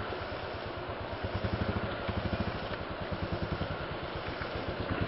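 Single-cylinder motorcycle engine running with an even low thudding beat, swelling a little a couple of times as the throttle is worked on a muddy off-road track.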